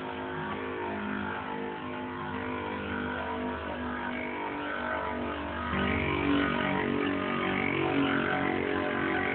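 Spinning Beyblade tops whirring and scraping against each other in a plastic stadium, with a low hum that grows louder about six seconds in, over guitar music in the background.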